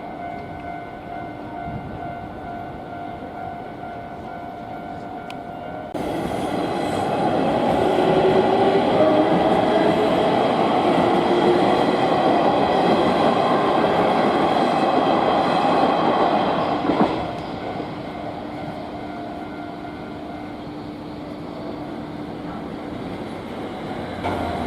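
Japanese level crossing alarm sounding steadily, then an electric train passes over the crossing from about six seconds in. Its running noise is loud for about eleven seconds and drowns out the alarm, which is heard again, fainter, after the train has gone.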